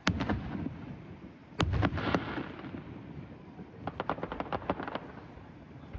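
Fireworks going off: a sharp bang right at the start, a second big bang about a second and a half in followed by crackling, then a quick run of about a dozen pops near the end.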